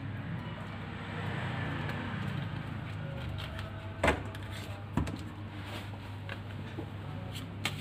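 Two sharp knocks about a second apart near the middle, over a steady low hum, with a few faint ticks near the end.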